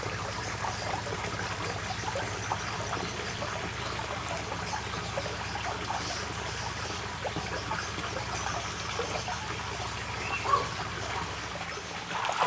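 Steady trickle of water running from a small rock waterfall and fountain jet into a garden fish pond.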